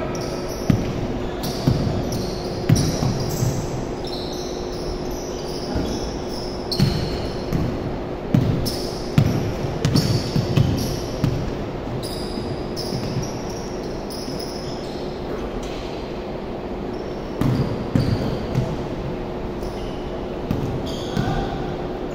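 Basketball bouncing on a hardwood gym floor during a game: irregular thumps in clusters with a lull in the middle, and sneakers giving short high squeaks on the court, echoing in a large hall.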